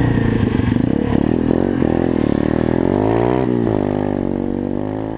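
Single-cylinder 125cc pit bike engine accelerating under the rider, its pitch climbing, dropping sharply at a gear change about three and a half seconds in, then climbing again. It grows fainter near the end.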